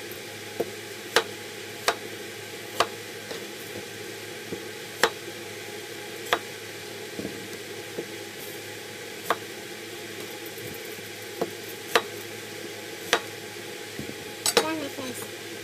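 Kitchen knife cutting potatoes on a cutting board: a sharp knock each time the blade meets the board, irregular and roughly once a second, with a short clatter near the end, over a steady low hum.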